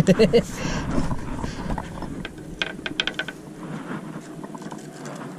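A few handling knocks at the start, then a quick run of about eight sharp clicks a little over two seconds in.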